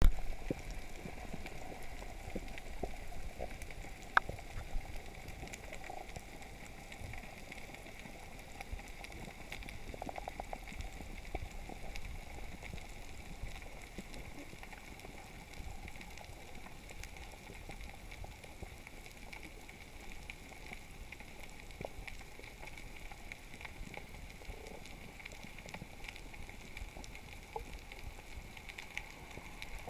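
Underwater reef ambience recorded from inside a camera housing: a dense, steady crackle of tiny clicks, typical of snapping shrimp on a coral reef, over a steady hum. A sharper click stands out about four seconds in.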